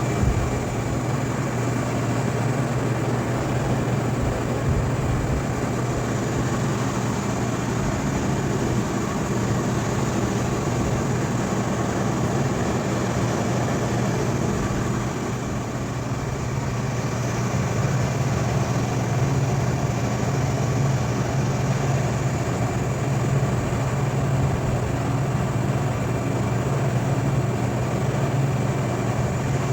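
A machine running steadily with a low, even hum that does not change.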